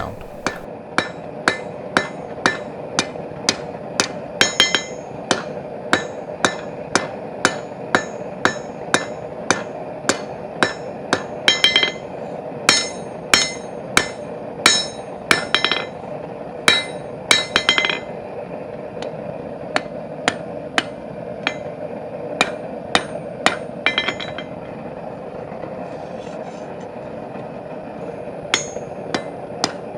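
Hammer blows on hot steel bar stock over an anvil, about two a second, some with a bright ring, as the bar is forged to an octagon and then round. The hammering stops for a few seconds near the end, then starts again.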